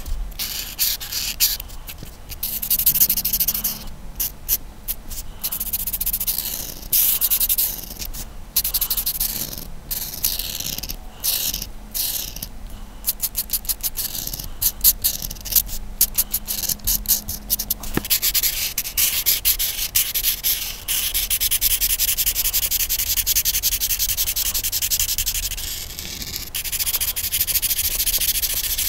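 A colouring tool rubbing on paper in quick back-and-forth strokes. The strokes come in runs with short pauses at first, then go on almost without a break from a little past halfway.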